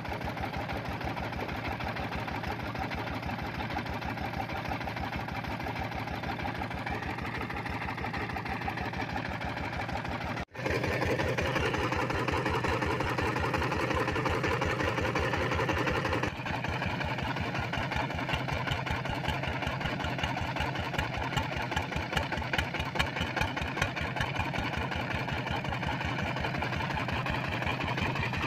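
Single-cylinder diesel engine driving a water pump, running steadily with an even beat of firing strokes. The sound cuts out for an instant about ten seconds in and comes back louder, then drops somewhat again around sixteen seconds.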